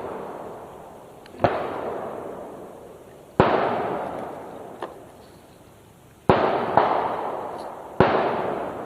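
A hooked largemouth bass flopping against the kayak: five sharp knocks at uneven intervals, each trailing off in a fading rush over a second or two.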